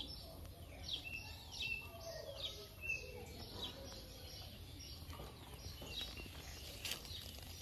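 Small birds chirping, with many short, quickly falling chirps repeating throughout over a steady low background noise.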